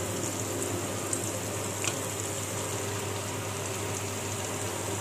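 Steady hiss of cooking at the kitchen stove, with a low hum underneath and one faint tick about two seconds in.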